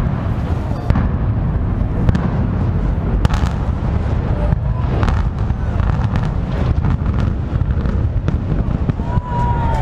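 Building implosion: demolition charges go off with a sharp blast, then a run of crackling booms over a continuous heavy low rumble, heard from a distance.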